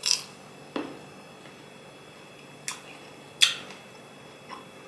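Biting into and chewing a crisp slice of green Keo mango: a sharp crunch at the first bite, then about four more separate crunches as it is chewed, the loudest about three and a half seconds in.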